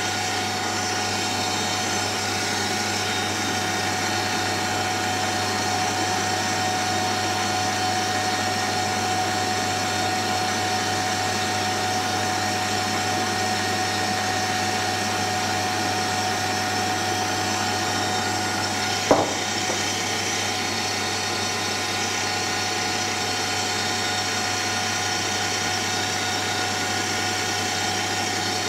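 Kenwood kMix stand mixer running steadily, whisking Swiss meringue buttercream, a constant motor hum. A single sharp tap about two-thirds of the way in.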